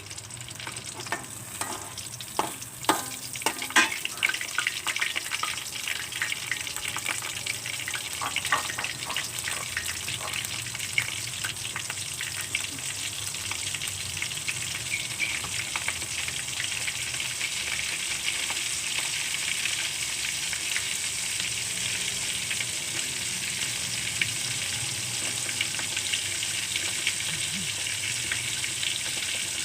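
Food pieces dropped into hot cooking oil and frying: a few knocks in the first seconds, then a steady sizzle with crackling that builds a little and holds. The oil is not yet fully hot.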